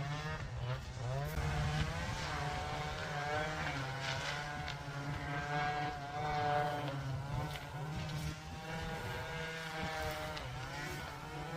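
Small drone's motors and propellers whining steadily, the pitch wavering up and down.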